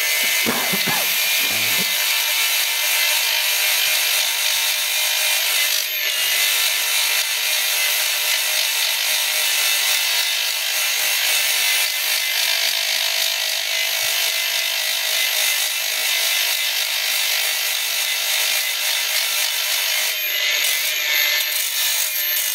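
Small angle grinder running steadily while grinding down a steel guide shaft, a clutch alignment mandrel, so that it slides easily into the 305 pilot bearing. The grinding eases briefly about six seconds in and again near the end.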